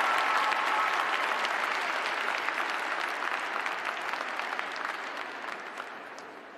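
Arena audience applauding, the clapping fading steadily away.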